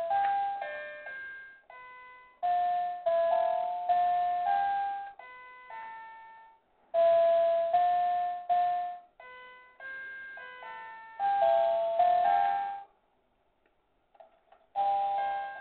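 A melody of bell-like chiming notes, each struck sharply and dying away, played in short phrases with brief pauses. It stops for about two seconds near the end, then starts again.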